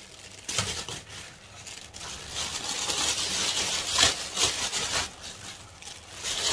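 Thin plastic bag crinkling and rustling as crisp baked puff-pastry cake layers are handled and pressed inside it, in irregular spurts that are busiest in the middle, with a sharp click near the middle.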